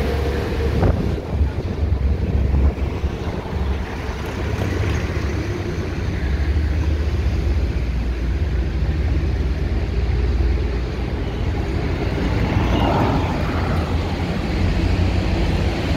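Steady low rumble of traffic on a wide road, mixed with wind noise on the microphone.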